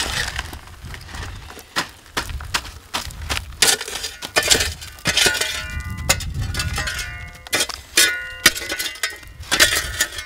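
Rocks and gravel clinking, cracking and scraping as they are worked by hand through a classifier screen set on a bucket, along with shovel and pick strikes into rocky soil: a dense run of sharp clinks and knocks.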